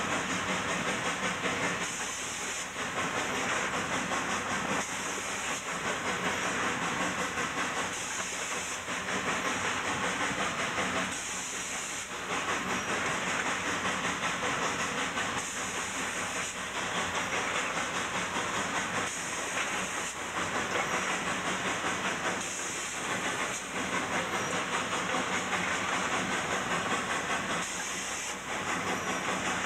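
Cab of a K-36 narrow-gauge 2-8-2 steam locomotive working a heavy train upgrade: a steady rush and hiss of steam that dips slightly in loudness every few seconds.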